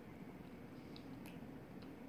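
Faint chewing of a fish stick, with a few soft mouth clicks over a steady low room hum.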